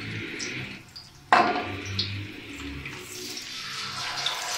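Besan-battered fish lowered into hot oil in a karahi: the oil starts sizzling suddenly about a second in, then keeps up a steady hissing sizzle around the frying fish.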